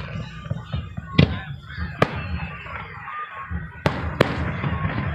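Fireworks going off: four sharp bangs, the last two close together.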